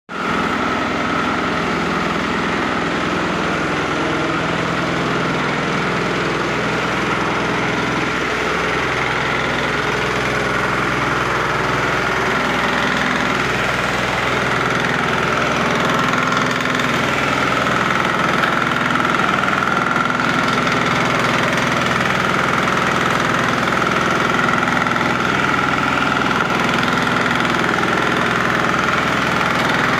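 Large-capacity waste and meat grinding machine running steadily, its motor drone carrying a steady high whine and a low, even pulsing.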